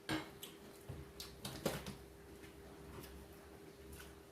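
Eating sounds: chewing food, with scattered short clicks and smacks, over a faint steady hum.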